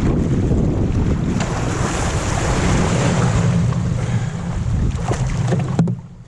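Wind buffeting the microphone with a steady rush of water behind it. It drops off sharply near the end.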